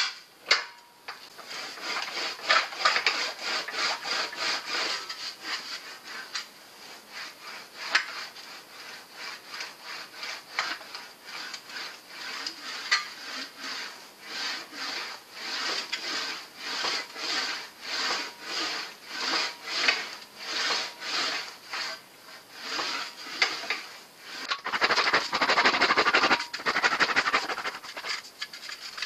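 Sheet-metal panel being rolled back and forth through an English wheel, giving a rhythmic rubbing rasp with each pass, about one and a half passes a second. Near the end the strokes come faster and louder.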